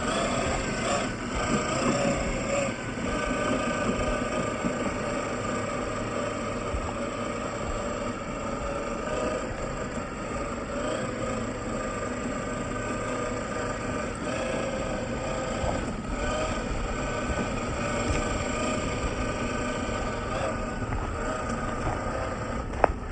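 A motor running steadily with a whine that holds a fairly even pitch over a low rumble, and a single sharp click near the end.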